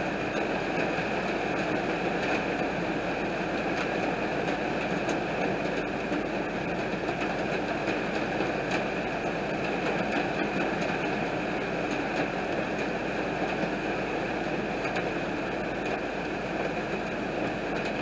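Heavy rain pouring steadily, a dense even hiss with scattered small ticks of drops striking.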